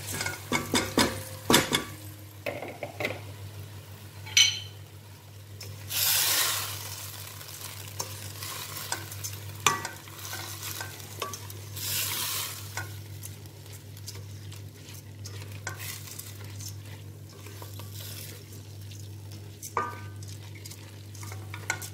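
Wooden spatula stirring dry rice and orange lentils in a stainless steel pot, the grains rattling and scraping against the metal with clicks of the spatula on the pot, and a light sizzle as the rice toasts in the oil with the sautéed aromatics. Two louder swishing sweeps come about six and twelve seconds in, over a steady low hum.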